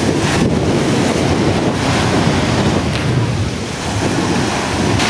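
Ocean surf washing along a beach, with strong wind buffeting the microphone in a steady low rumble.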